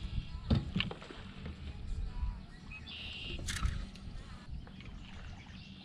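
Light knocks and handling noises from a freshly caught bass and fishing gear being handled in a kayak, with a short bird chirp about three seconds in.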